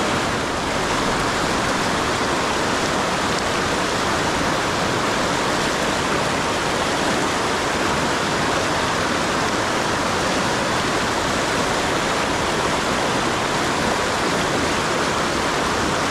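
Steady rush of river current flowing over rocks.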